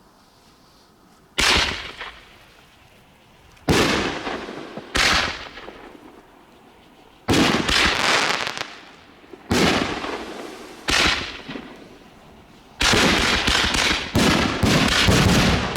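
A rack of canister artillery shell fireworks firing in sequence: loud sharp reports, each fading over a second or so, at uneven gaps of one to three seconds, then several crowding together near the end. The uneven spacing means the fuse timing is off.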